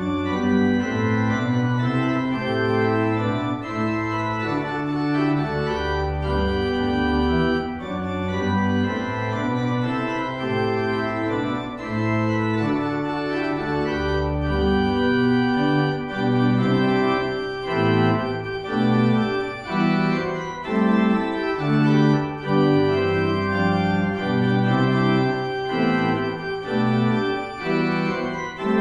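Church organ playing a closing voluntary: sustained chords that change every second or so over a moving bass line.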